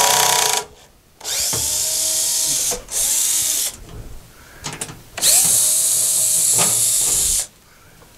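Power drill driving out the screws of a thickness planer's sheet-metal base cover panel, run in four bursts: a short one at the start, two in the first half and a longer one of about two seconds later on. The motor's pitch rises and falls within each burst.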